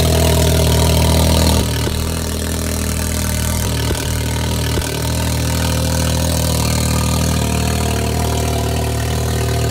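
Can-Am Maverick X3's turbocharged three-cylinder engine idling steadily through a straight pipe, its exhaust silencer removed. The level dips slightly about a second and a half in, and there are two short knocks near the middle.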